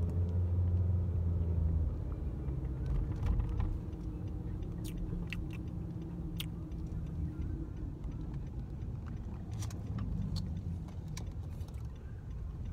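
Car cabin noise while riding: a steady low engine and road rumble, heaviest for the first two seconds, with a few light clicks.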